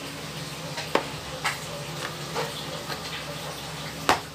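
Handling noise from a folding fabric 20-watt solar panel being unfolded by hand: a few light taps and clicks, the loudest near the end, over a low steady hum.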